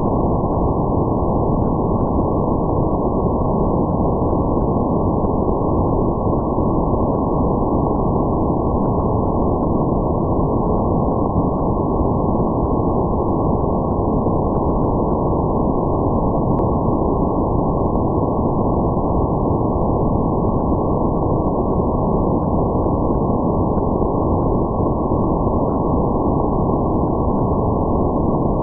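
Underwater ambience as picked up by a hydrophone: a steady, muffled rushing noise with nothing in it above a low ceiling, and faint crackles scattered through it.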